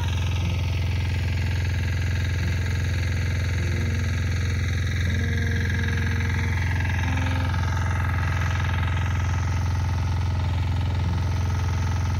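Irrigation water pump's motor running steadily at an unchanging pitch and level, pumping water onto the crop plots.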